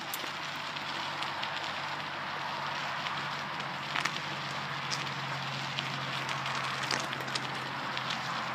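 Bicycle tyres rolling over a paved trail strewn with grit and loose gravel: a steady hiss with scattered sharp clicks of small stones.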